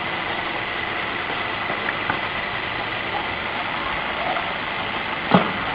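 Steady noisy background hum with a thin, constant high whistle. One sharp knock about five seconds in.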